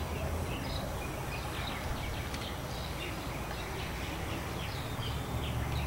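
Birds chirping, many short faint calls scattered throughout, over a steady low hum.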